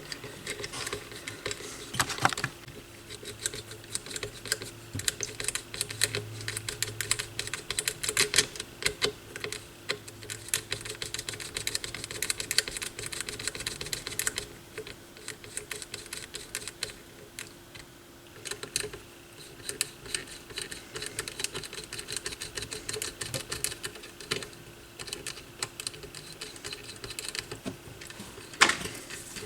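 Light, irregular clicking and clattering of the turntable's small parts being handled, with a couple of louder knocks, about two seconds in and near the end, over a faint steady hum.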